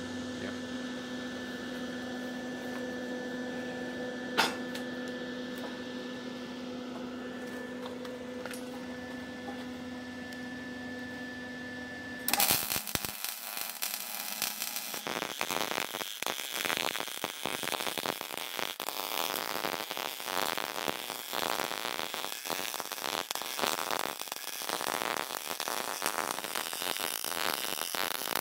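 A steady hum with a single click, then from about twelve seconds in the irregular crackle of a Lincoln Power MIG 180C welder's arc, laying a bead where a steel I-beam meets a post.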